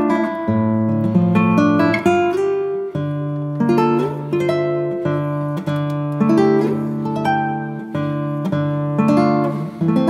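Background instrumental music: plucked and strummed string chords that change about once a second.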